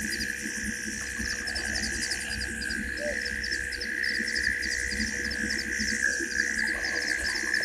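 Night-time insect chorus in the bush: a steady high drone with a quick double chirp repeating several times a second.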